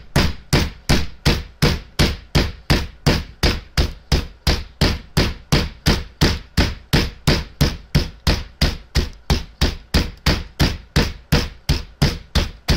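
A fist pounding chicken thighs flat through a plastic zip-top bag on a plastic cutting board: steady, even thumps, about three a second.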